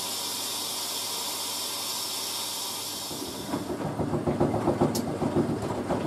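Hoover A3060 Electronic 1100 washing machine on a rinse: water hisses steadily in through the fill, which shuts off about three and a half seconds in. Then the drum tumbles the wet load with a rhythmic sloshing, and a couple of sharp clicks are heard.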